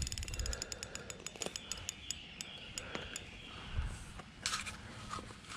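Spinning fishing reel clicking in a rapid, even run that thins out and stops after about two seconds, as a heavy hooked turtle is played on the line. A brief rustle about four and a half seconds in.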